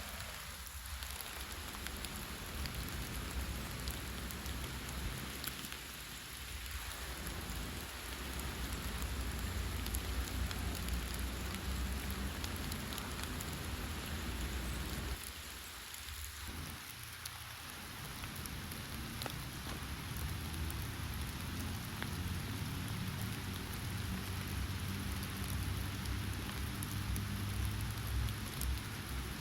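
Steady rain falling, an even patter and hiss with a constant low rumble underneath; it eases briefly about six seconds in and again around fifteen seconds.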